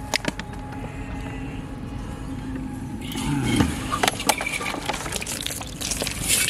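Fish-bait ingredients being poured into a large metal basin of bran feed: a hiss of falling grain with scattered ticks, starting about three seconds in, over a steady background hum.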